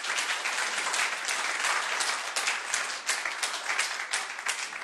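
Audience applauding in a lecture hall: a steady patter of many hands clapping, thinning out just after the end.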